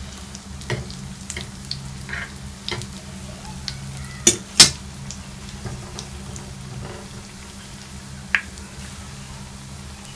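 Binangkal (sesame-coated dough balls) sizzling as they deep-fry in hot oil in a pan, over a steady low hum. A fork knocks and scrapes against the pan: scattered clicks, with two sharp knocks about four and a half seconds in as the loudest sounds and another near the end.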